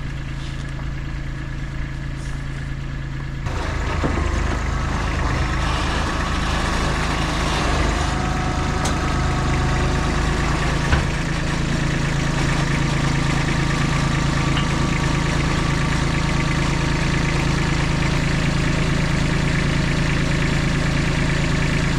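A vehicle engine running steadily with a low hum. It gets louder about three and a half seconds in.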